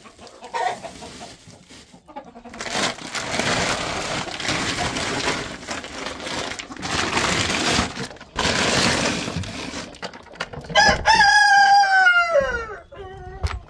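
Plastic feed bags rustling and crinkling as they are pulled out of the gap in the coop door. Near the end a rooster crows once, loudly, a long call falling in pitch.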